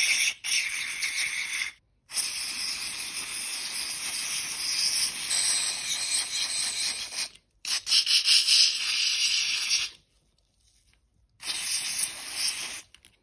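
Aerosol carburetor cleaner sprayed through a red extension straw into the jets and little passageways of a lawnmower carburetor, hissing in several bursts, the longest about five seconds, with short silent breaks between them. The spraying flushes the carburetor's blocked fuel passages clear.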